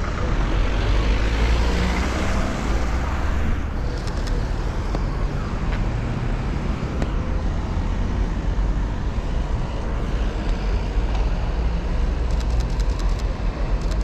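Steady street traffic noise. A vehicle passes in the first few seconds and fades away after about three and a half seconds.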